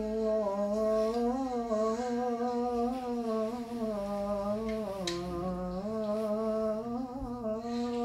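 A man's solo voice chanting the adhan, the Islamic call to prayer, drawing out one long melismatic note with a wavering, ornamented pitch that dips briefly a little past the middle.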